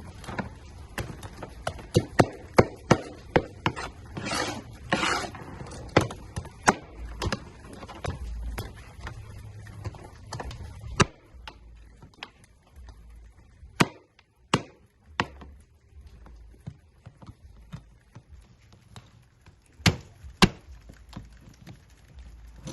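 Sharp clicks and cracks from a king crab's hard, spiny shell being handled and cleaned. They come about once or twice a second for roughly the first ten seconds, then only now and then, with a brief scraping sound around four seconds in.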